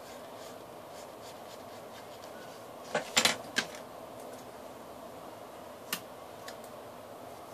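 Sheets of paper being handled and creased: a quick cluster of sharp crackles and taps about three seconds in and one more near six seconds, over a steady low room hum.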